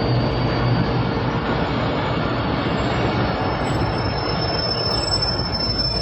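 Pak Business Express passenger train rolling into the station, its coaches passing with a steady loud rumble of wheels on rail. A thin, high steady squeal comes in about halfway and grows stronger near the end as the arriving train rolls on.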